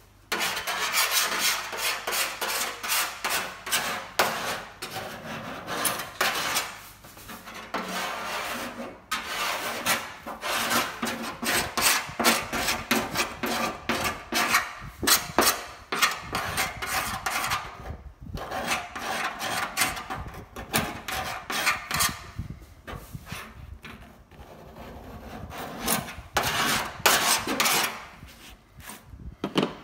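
Hand scrubbing of a VW Beetle steel engine lid's painted surface, wet with paint stripper: rapid scratchy back-and-forth strokes, broken by a few short pauses.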